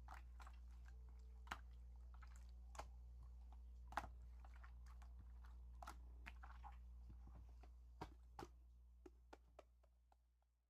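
Slime being squeezed and poked by hand, making scattered small sticky pops and clicks over a steady low hum. It fades out near the end.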